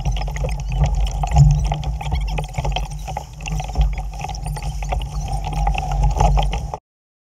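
Wind buffeting the microphone on a small sailboat, with choppy water slapping and splashing against the hull. It cuts off suddenly near the end.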